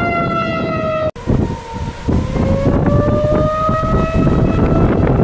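Outdoor tornado warning siren wailing over gusty wind on the microphone, the sign of a tornado warning in force. Its pitch sags slightly, the sound breaks off abruptly about a second in, and then the siren tone climbs slowly again.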